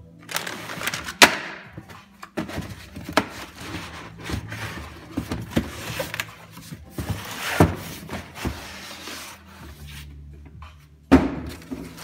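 Unboxing noises: a plastic bag of duct clamps crinkling and being set down, then cardboard, plastic wrap and foam packing rustling and scraping as a foam-packed inline duct fan is pulled from its box. Scattered knocks throughout, with a sharp thump about a second in and another near the end.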